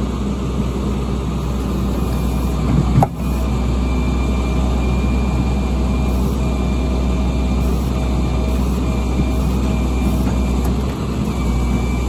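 A boom truck's engine runs steadily under load while its crane hydraulics lift the wrecked cornhead. A thin whine cuts in and out every second or so as the controls are worked, and there is a single sharp clunk about three seconds in.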